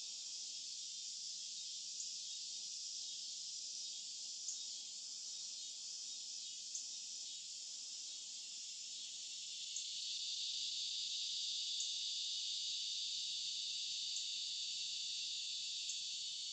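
Evening insect chorus at dusk: a dense, steady, high-pitched buzzing drone that swells louder about ten seconds in. A few faint ticks are scattered through it.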